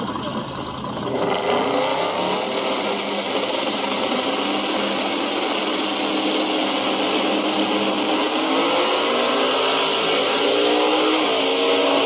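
Drag-racing car at full throttle accelerating down the strip. The engine gets sharply louder about a second in and its pitch climbs as the car gathers speed.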